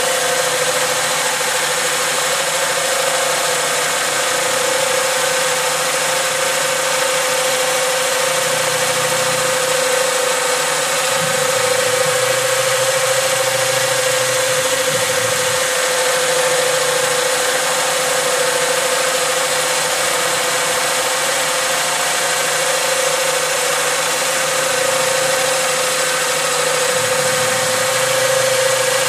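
Boxford Duet CNC lathe running with its spindle turning a workpiece: a steady machine hum with an even whine held at one pitch throughout.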